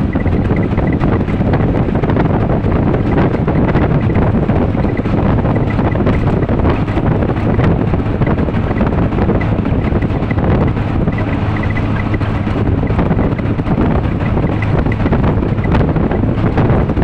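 Loud steady wind noise on the phone's microphone as it is carried along a bridge, with a low rumble of travel underneath.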